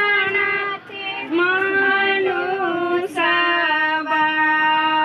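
A woman's voice singing a slow song in long, drawn-out held notes, with a short break about a second in and a new note about three seconds in.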